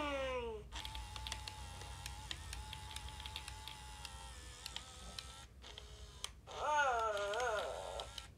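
Furby Baby electronic toy: a short high electronic call gliding downward, then a few seconds of faint motor whirring with small clicks as its eyes and ears move, then another wavering, warbling baby-talk call about seven seconds in.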